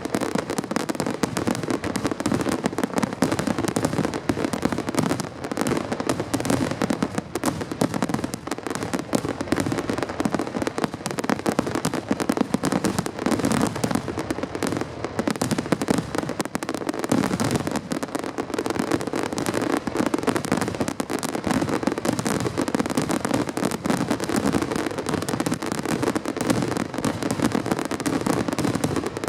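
Fireworks finale: aerial firework shells bursting in a dense, continuous barrage, with no pause between the blasts.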